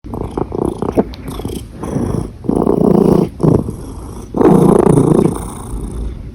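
Domestic cat purring close to the microphone, swelling louder and softer in several stretches, broken by a few short, sharp hiccup jolts.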